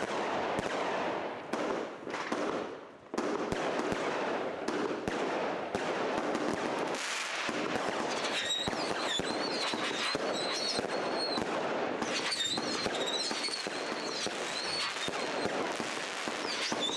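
Consumer firework cake going off: rapid crackling and popping, with the shots and crackle running together, and a short lull about three seconds in. From about eight and a half seconds a high, wavering whistle rises over the crackle.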